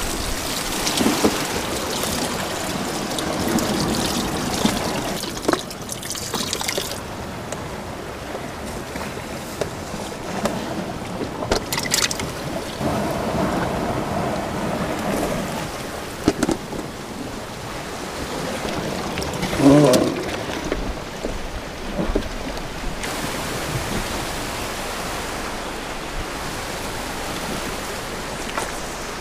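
Seawater trickling and sloshing in a plastic bait bucket as it is hauled up the rocks on a rope and handled, over a steady wash of shore waves and wind on the microphone, with scattered knocks and one louder bump about twenty seconds in.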